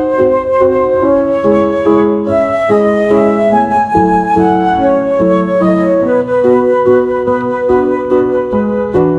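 Background music: a gentle melody played on flute over piano, in held, stepping notes.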